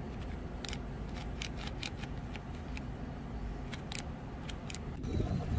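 Sharp mechanical clicks, about a dozen at uneven spacing, from the thumb-operated trigger lever of an all-to bike gearbox shifter being pressed to change gears. Near the end, wind rumble on the microphone takes over.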